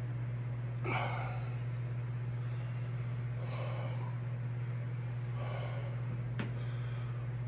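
A man breathing hard through his mouth in three heavy puffs a couple of seconds apart, his mouth burning from the chocolate primotalli peppers he has just eaten. A short click comes near the end, over a steady low hum.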